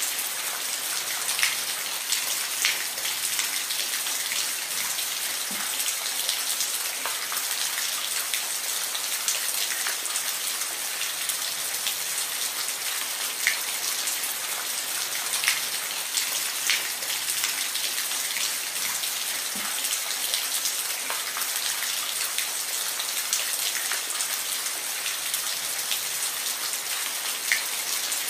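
Steady rain falling, a continuous hiss with scattered sharp ticks of single drops striking a surface.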